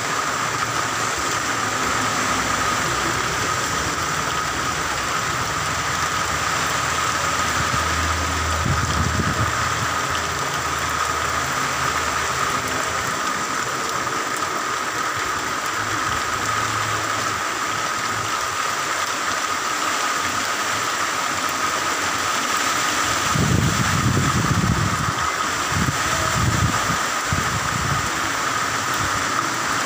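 Heavy typhoon rain falling steadily as an even, dense hiss. Low rumbling gusts of wind come through twice, briefly about a third of the way in and longer and stronger later on.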